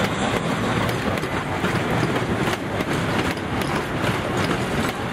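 Open cars of a narrow-gauge train rolling past close by, the steel wheels running on the rails with scattered clicks over the rail joints.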